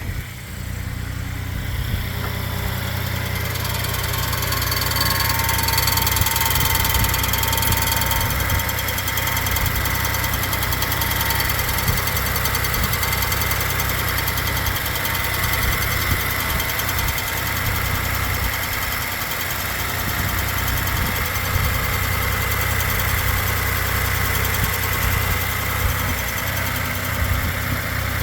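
Ford F-150's 3.5L EcoBoost twin-turbo V6 running steadily, with a thin steady high-pitched tone over the engine sound that grows louder a few seconds in. This is the unexplained noise the owner wants diagnosed; his tags point at the cam phasers or the transmission.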